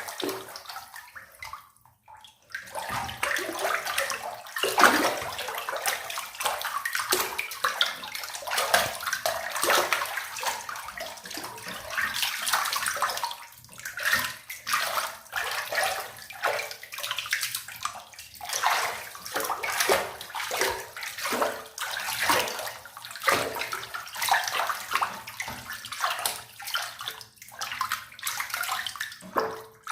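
Water in a bathtub splashing and sloshing in uneven surges, with a brief lull about two seconds in.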